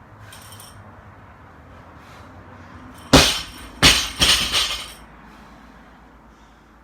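Loaded barbell dropped to the floor: a loud clanging crash about three seconds in, then a few quicker bounces with metal rattling that die out within two seconds.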